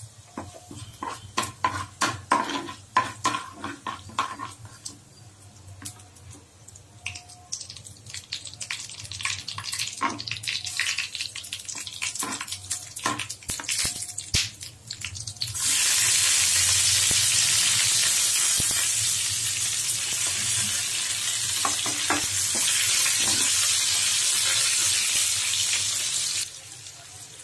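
A spoon scraping and tapping in a nonstick pan while cumin and urad dal fry gently in ghee. About halfway through, a loud, steady sizzle starts as chopped onion, green chilli and curry leaves go into the hot ghee, and it cuts off suddenly near the end.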